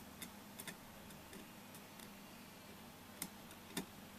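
Faint, irregular clicks of a metal probe tip tapping and pushing on the pins of surface-mount shift-register chips on a circuit board, checking for unsoldered pins. There are about nine clicks, with two slightly sharper ones near the end.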